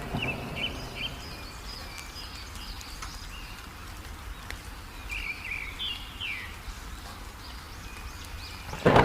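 Small songbirds chirping in short, quick phrases over a low, steady rumble of rain. Just before the end, a sudden loud thunder crash sets in.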